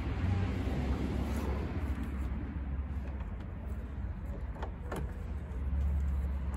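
Small plastic clicks and handling noises from the reverse-light bulb socket being worked into the back of a Lexus IS250 taillight, over a steady low background rumble. Two faint clicks come about four and a half and five seconds in.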